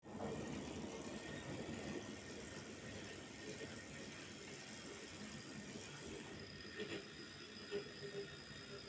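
Wahoo KICKR smart bike trainer running, a steady whir with a few light knocks, making the strange noise its owner is trying to show. A faint high whine comes in about six seconds in.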